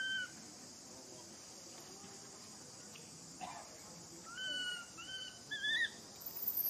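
Baby macaque giving short high-pitched cries: one at the start, then three in a row about four to six seconds in. Under them runs a steady high insect buzz, and a high falling whistle sounds near the end.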